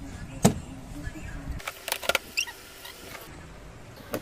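Handling noise from repair work on a washing machine: a sharp knock about half a second in, then a few light clicks and a short high squeak as a screwdriver works on the cabinet panel.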